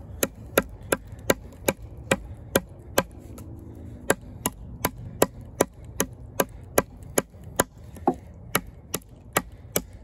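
Kizer Justice II fixed-blade knife, with a D2 steel drop-point blade, chopping into a gnarly piece of wood. The knocks are sharp and even, about three a second, with one short pause about three seconds in.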